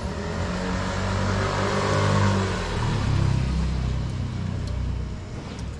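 A motor vehicle driving past, its engine and road noise swelling over the first two seconds or so and then fading away toward the end.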